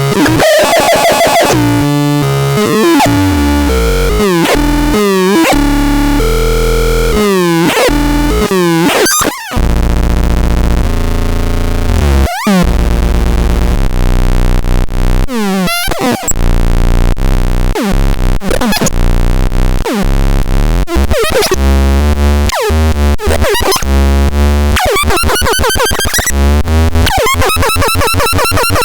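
Harsh, glitchy electronic synthesizer noise: jumping and sweeping pitched tones over blocky low bass, cutting out briefly twice. Near the end it turns into a rapid run of repeating rising sweeps.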